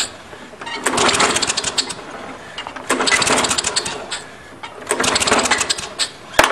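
Push mower's Tecumseh engine being cranked with the recoil pull cord three times, about one pull every two seconds, each pull a rapid ticking rasp that does not catch, with a sharp click near the end. It will not start because the leaking carburetor needle and seat is flooding it and blowing gas out.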